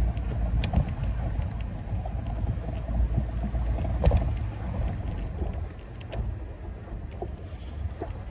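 4WD vehicle driving slowly over a rough dirt track, heard from inside the cabin: a low engine and tyre rumble with scattered knocks and rattles. The rumble eases off a little about two-thirds of the way through.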